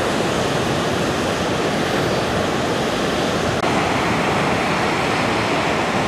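Ocean surf breaking on a sandy beach: a steady wash of waves.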